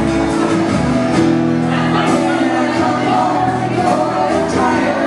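Loud music with a singing voice, in a large room.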